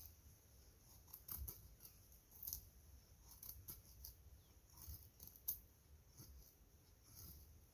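Faint short scrapes of a knife blade shaving a wooden stick, roughly one stroke a second.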